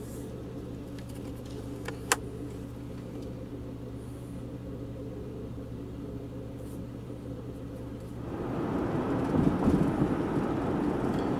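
Inside a car's cabin: a steady low engine hum while the car idles in traffic, with a single sharp click about two seconds in. About eight seconds in this changes to the louder rumble of the car driving, with road and tyre noise.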